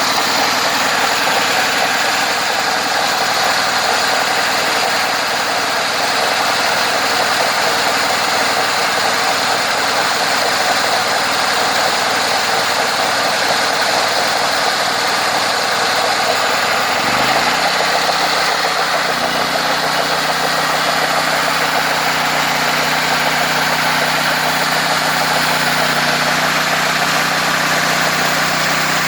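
Engine of a homemade sawmill running steadily with a loud mechanical roar. About two-thirds of the way through, its pitch drops quickly and then holds at a lower speed.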